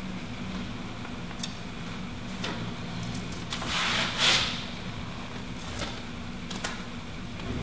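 Self-adhering flashing tape being worked onto a plywood window sill by hand, its paper release liner peeling back with a rustling, tearing swish about four seconds in, with a few light taps and rubs around it.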